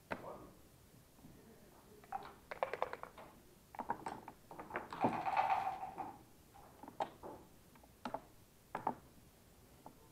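Backgammon play: dice rattled in a dice cup and thrown onto the board, then checkers clicked down into place one at a time.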